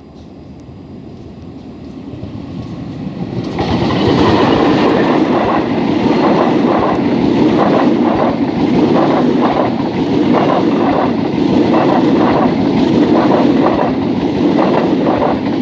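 A train running over a railway bridge: it grows louder over the first three seconds or so as it comes close, then passes with a loud, steady run of rapid clickety-clack from its wheels striking the rail joints.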